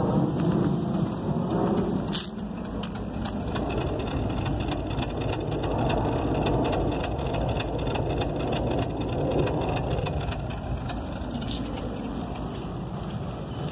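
2007 VW Passat 2.0T FSI's turbocharged four-cylinder engine idling roughly, with many irregular sharp ticks over a steady low rumble. The rough idle is the symptom the owner traced to a defective battery with a bad internal plate.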